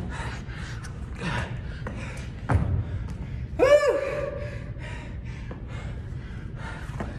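A man panting hard through a burpee-style workout. There is a thud about two and a half seconds in, and a short, loud vocal cry that swoops up and holds one note near the middle.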